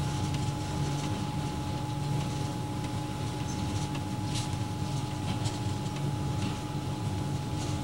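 Steady cab noise of an EMD GF6C electric locomotive rolling slowly: a low rumble with two steady hums held throughout, and a few faint light clicks.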